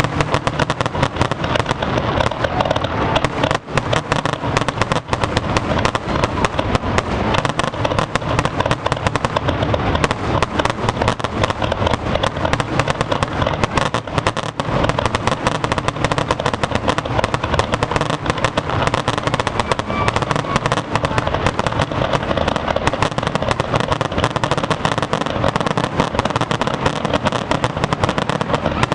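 Aerial fireworks shells bursting in a rapid, unbroken barrage, the booms and crackles overlapping with no pauses.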